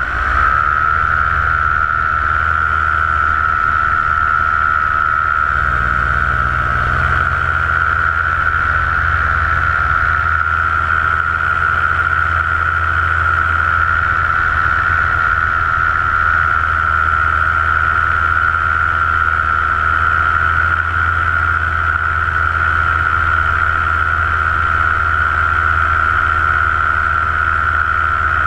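Paramotor engine and propeller running steadily in flight: a continuous drone with a strong high whine, the engine note shifting briefly near the start and again about six seconds in.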